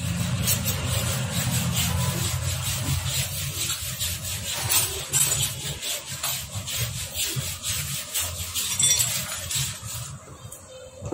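Scraping, rubbing and clicking of a Hero Splendor Plus motorcycle engine's metal casing being handled and shifted on a workbench during assembly. A steady low hum runs underneath and fades about ten seconds in.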